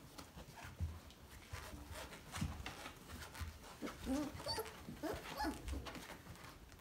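Three-week-old basset hound puppies whimpering, a few short, high squeaky whines clustered between about four and five and a half seconds in, over soft bumps and scrabbling of paws.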